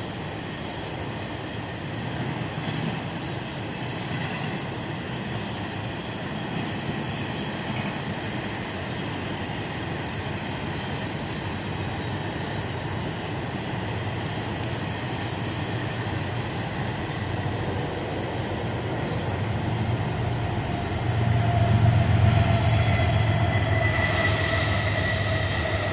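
Freight train rolling past: a steady rumble of cars on the rails. About 21 seconds in it grows louder, with a deeper low hum and a thin steady whine joining it.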